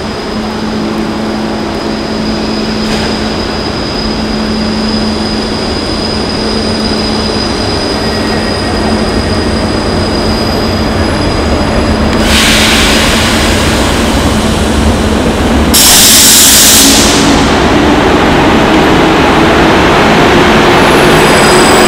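ZSSK class 350 electric locomotive drawing a passenger train slowly into the platform. Its steady hum and whine grow louder as it approaches, and two loud hissing bursts come about twelve and sixteen seconds in.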